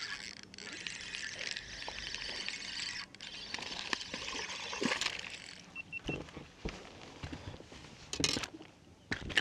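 Hooked bass splashing and thrashing at the surface as it is reeled in on a spinning reel; the water noise stops about six seconds in. A few sharp knocks follow as the fish is handled at the boat.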